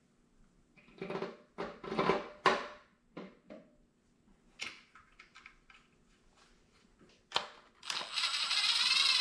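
Metal parts clinking and knocking as an alternator and belt tensioner are handled and set against the engine. Near the end a cordless driver runs for about a second and a half, rising in pitch as it drives in a mounting bolt.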